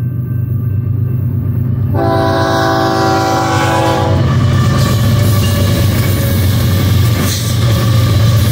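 BNSF diesel freight train led by a GE ES44C4 locomotive, coming up and passing close by with a steady deep engine rumble. The lead locomotive sounds one multi-note horn blast about two seconds in, lasting about two seconds. After that comes the rushing noise of the locomotives and double-stack intermodal cars rolling past on the rails.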